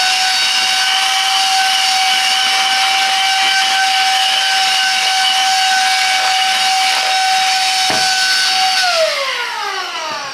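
Silvercrest SHM A1 mini cordless handheld vacuum cleaner running with a steady high-pitched motor whine and airflow hiss. It is switched off about nine seconds in, and the whine drops in pitch as the motor winds down.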